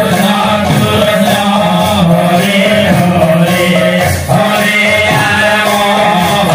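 Devotional kirtan music, loud and steady: a man chanting into a microphone over a steady drone, with rhythmic percussion.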